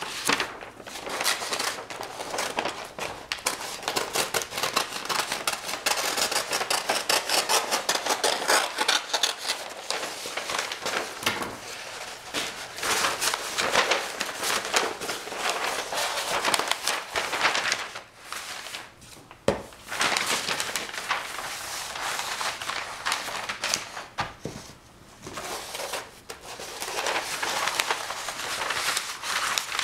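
A large sheet of paper rustling and crackling as it is unrolled and handled, with a couple of short lulls.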